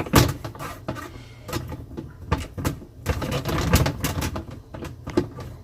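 Plastic dishwasher filter parts being twisted and worked into their seat at the bottom of the tub: a run of irregular plastic clicks, knocks and scrapes as the piece is turned to find its slot.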